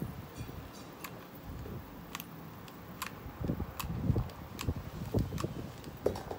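Handling sounds from working a small hot glue gun: scattered light clicks and taps, with a few soft low bumps in the second half.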